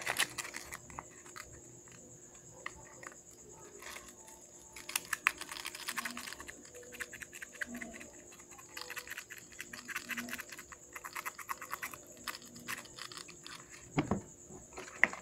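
Sandpaper scraping in short irregular strokes over the small copper contacts of an opened power-window switch, a rapid run of faint scratchy ticks, to clean dirt off a contact that showed no continuity. A couple of louder knocks near the end as the switch is handled.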